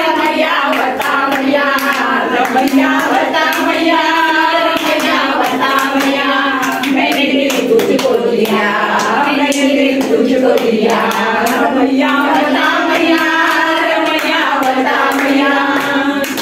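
A group of women singing a song together in chorus, clapping their hands in rhythm along with it.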